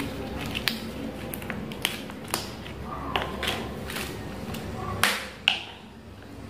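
A flat metal tool clicking and tapping against the rim of a plastic 16-litre paint bucket lid as it is pried at, in about a dozen irregular sharp clicks, the two loudest a little after five seconds in.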